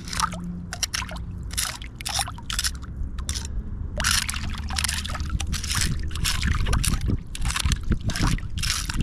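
Shallow creek water sloshing and splashing in short, irregular bursts, over a steady low rumble.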